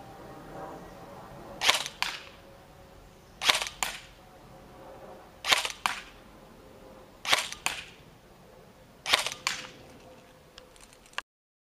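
SRC M4A1 electric airsoft rifle firing single shots on semi-automatic: five shots about two seconds apart, each a sharp double click. The sound cuts off abruptly near the end.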